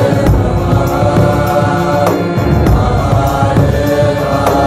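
Devotional show music with a group of voices chanting in long held notes over low percussion.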